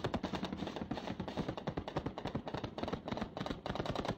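Sustained rapid gunfire in a firefight: dense, overlapping shots coming many times a second without a break.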